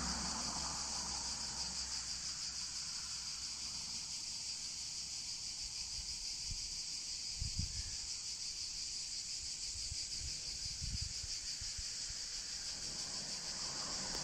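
Steady, high-pitched insect chorus with a fast, even pulsing, with a few brief low rumbles about halfway through and again a little later.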